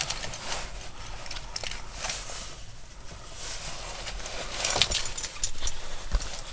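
Rustling and scattered clicks from handling inside a parked car's cabin, with a quick run of sharper clicks about five seconds in.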